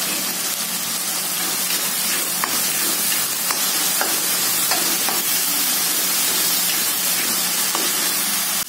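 Ground spice paste with lemongrass, bay and lime leaves and galangal sizzling steadily in oil in a wok, stirred with a metal spatula that clicks and scrapes against the pan a few times. This is the paste being sautéed until fragrant.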